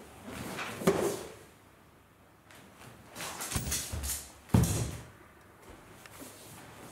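Barefoot steps and stamps on a wooden dojo floor, with rustling of hakama and keikogi as two people move through a sword kata. Two sharp knocks stand out, about a second in and about four and a half seconds in, the second the loudest.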